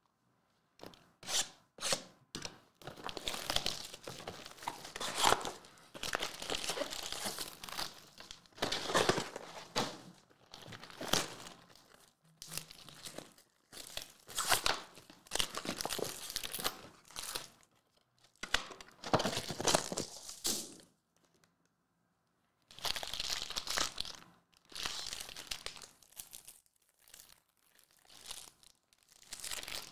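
Plastic shrink-wrap and packaging of trading-card hobby boxes being torn open and crinkled, then the wrapped card packs rustling as they are lifted out and stacked. It comes in irregular bursts with a brief pause about two-thirds of the way through.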